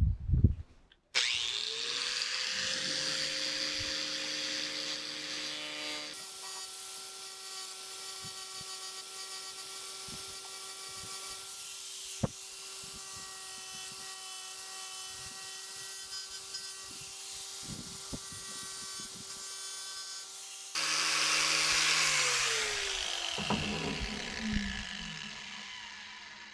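A handheld electric power tool spins up, runs steadily at a constant pitch with a couple of changes in tone, then winds down near the end.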